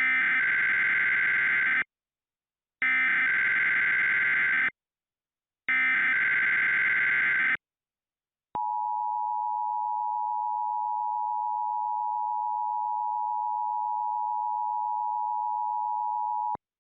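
Emergency Alert System alert opening. Three bursts of the SAME digital header, a buzzing warble of data about two seconds long, each about a second apart, are followed by the steady EAS attention tone, held for about eight seconds before it cuts off abruptly.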